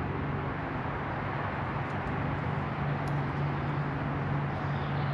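Helicopter passing overhead: a steady low drone that stops abruptly at the very end.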